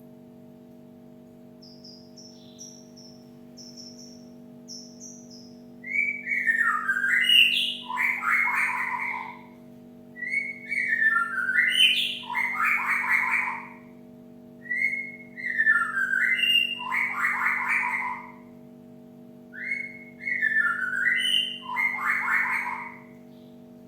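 Cinereous tit calling: faint high chirps at first, then the same loud phrase four times, about every four and a half seconds. Each phrase is a swooping whistled run that breaks into a harsh, buzzy chatter. A steady low hum runs underneath.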